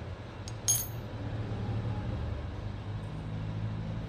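Small metal fuel-pump governor parts clinking against the workbench as they are handled: a short click, then a louder, ringing clink just under a second in, over a steady low hum.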